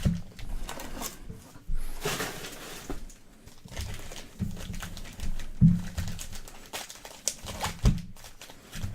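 Hands handling and opening a sealed trading-card box: scattered rustling and scraping of cardboard and wrapping, with several soft low thumps against the table.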